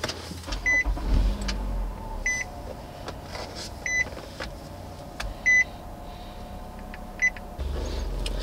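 Car's dashboard warning chime beeping five times, evenly, about every second and a half, over a low in-car background, with a brief low rumble about a second in.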